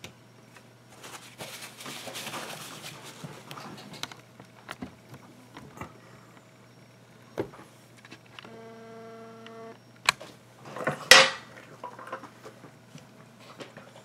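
A sub-ohm rebuildable dripping atomizer with a 0.19-ohm coil and loose cotton being fired and drawn on: e-liquid crackling and sizzling on the hot coil as air rushes through the open air holes. There is a short buzzing tone about eight and a half seconds in and a loud rushing burst about eleven seconds in.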